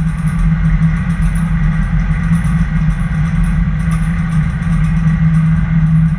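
Car running, a steady low drone of engine and road noise.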